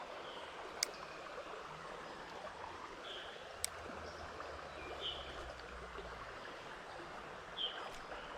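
Shallow creek water running steadily over rocks, a soft even rush, with a few short high chirps and two sharp clicks over it.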